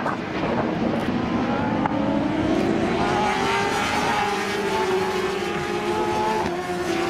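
Several superbike racing motorcycles at high revs as a pack goes through a bend, their engine notes overlapping and rising a little partway through.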